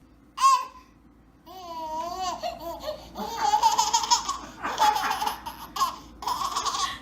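A baby laughing and babbling: a short squeal about half a second in, wavering babble, then repeated bursts of laughter from about three seconds in.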